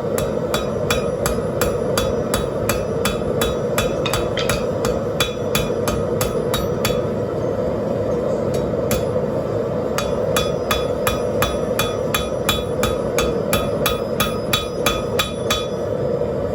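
Hand hammer striking rebar on a steel anvil in a steady run of ringing blows, about three a second. The blows pause for a couple of seconds midway, then resume.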